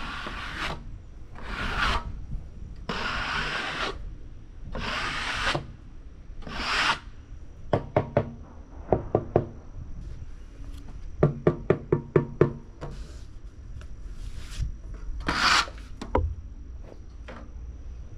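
Hand work on sawn cottonwood boards: several rough scraping strokes of wood on wood, each under a second. These are followed by a quick run of about seven sharp wooden knocks.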